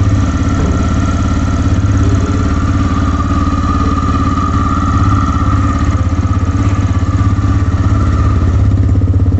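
TVS Raider 125's 124.8 cc single-cylinder, air- and oil-cooled engine idling steadily, a fast even low beat.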